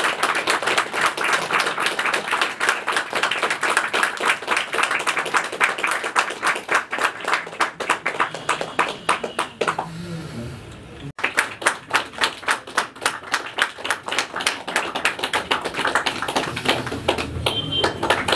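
A group of people clapping in a steady rhythm, about four or five claps a second, with a short break near the middle before the clapping picks up again.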